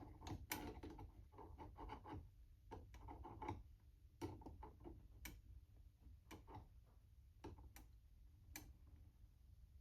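Near silence, broken by faint, scattered light clicks and taps of small carburetor parts being handled and fitted during reassembly.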